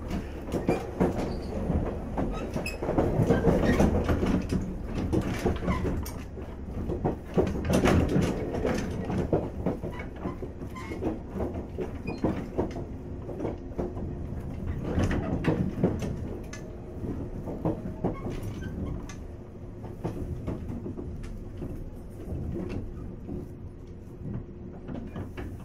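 Running sound inside a JR East 485 series 3000 subseries electric train's motor car (MoHa 485-3031): a steady low rumble and hum from the motors and wheels, with clicks from the rail joints. The sound swells and eases as the train goes.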